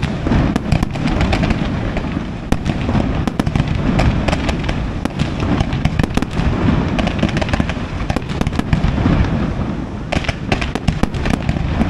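Fireworks display: a continuous rumble of shell bursts with dense crackling throughout, a thicker flurry of crackles about ten seconds in.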